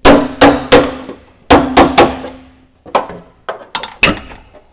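Hammer blows on a steel repair panel, knocking it into place over the wheel arch: about ten sharp strikes in three quick groups, the first ones loudest, each leaving a short metallic ring.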